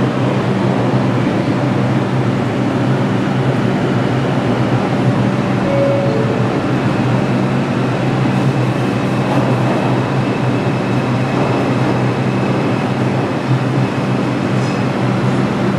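R142 subway train running through the station: a steady, loud rumble with a low hum, and a faint high whine through the middle and later part.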